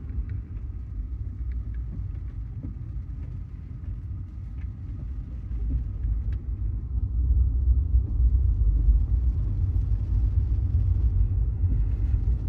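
Low rumble of tyre and road noise inside an electric Tesla's cabin on a wet road, growing louder about seven seconds in.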